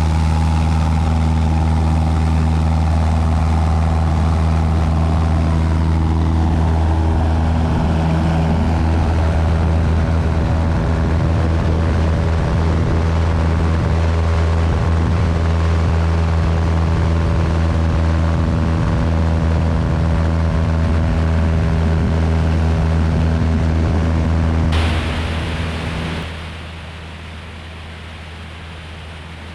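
Cessna 172's piston engine and propeller running steadily, heard from outside the airframe with airflow noise. Near the end the sound suddenly drops much quieter and duller.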